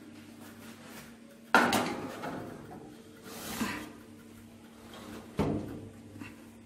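A metal baking tray being put into a gas oven: a sharp metal clank about one and a half seconds in, a short rushing noise midway, and a second clank near the end, over a faint steady low hum.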